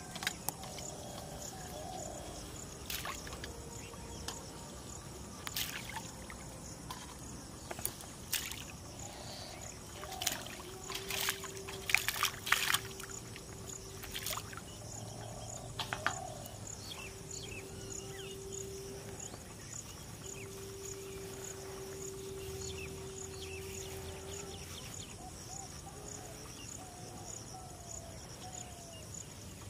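Insects chirping in a steady, evenly spaced pulse, with scattered sharp knocks and splashes at the pond's edge bunched around the middle, the loudest about twelve seconds in. A steady hum comes and goes through the middle part.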